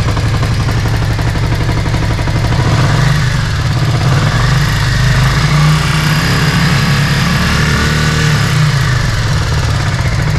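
Yamaha Virago 535's V-twin engine running after a fuel pump replacement, holding its speed. Its revs rise about three seconds in and ease back down about eight seconds in.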